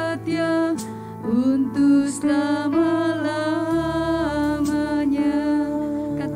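A woman singing a slow Indonesian worship song into a microphone, holding long notes over sustained instrumental accompaniment. A deeper bass note enters a little under four seconds in.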